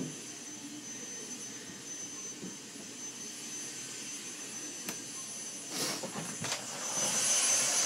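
Vacuum cleaner running steadily with a thin high motor whine, growing louder near the end, with a few soft knocks.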